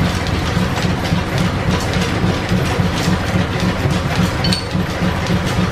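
Belt-driven 1925 American 18-inch engine lathe running off a line-shaft flat-belt drive: a steady, rhythmic mechanical clatter of belts, pulleys and gears.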